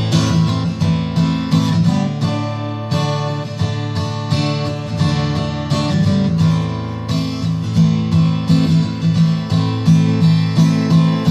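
Steel-string acoustic guitar strummed in a steady rhythm, chords ringing between the strokes, with no singing.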